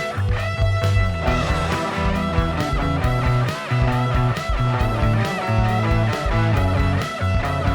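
Background rock music with electric guitar, a bass line and a steady beat.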